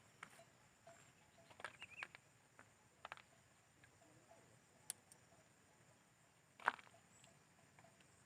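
Near silence with a few scattered small clicks and taps, the loudest about two-thirds of the way in, over a faint steady high hiss.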